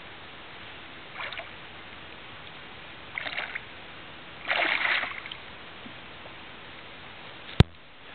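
Hooked smallmouth bass splashing and thrashing at the water surface beside the boat, in a few short bursts, the longest and loudest about four and a half seconds in. A single sharp click comes near the end.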